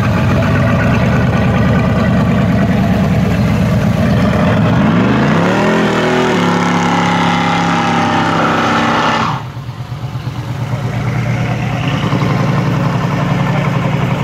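A 1972 Chevelle SS's 502 cubic-inch (8.2 L) big-block V8 during a burnout, the rear tyres spinning and smoking: the engine runs hard, climbs sharply in revs about five seconds in and holds there. About nine seconds in the revs cut off suddenly and the engine drops back to a lower rumble.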